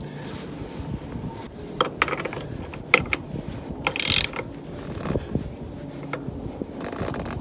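Ratchet wrench clicking in short uneven runs as it tightens the castle nut on an ATV's axle hub, with a brief louder rasp about four seconds in.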